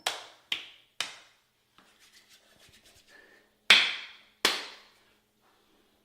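Five sharp knocks on a hard surface: three about half a second apart, then, after a pause with faint shuffling, two louder ones in quick succession.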